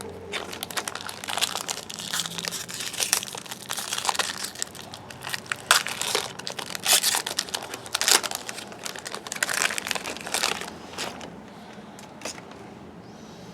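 Trading-card pack wrapper being torn open and crinkled, a long run of sharp crackles that thins out over the last couple of seconds.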